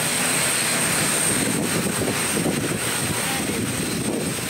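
Airplane engines running steadily: a constant even rushing noise with a thin, steady high tone above it.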